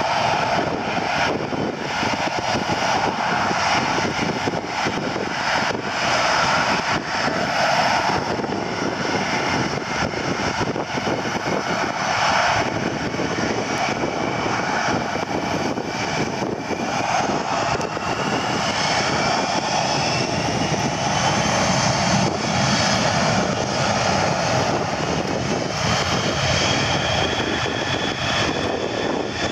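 Boeing KC-135 Stratotanker's jet turbofan engines running as the tanker moves along the runway: a steady roar, with a whine rising in pitch about two-thirds of the way through.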